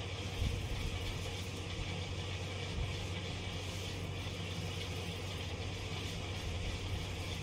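Electric hair clipper running steadily, a constant buzzing hum with a faint knock or two as it works through the hair.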